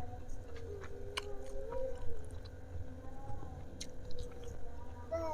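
Close-miked chewing of food, wet and steady, with a few sharp clicks of crunching or teeth.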